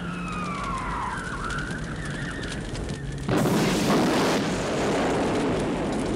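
A high gliding tone that falls and then rises, then, about three seconds in, a sudden loud car explosion in a film scene, followed by the steady noise of fire.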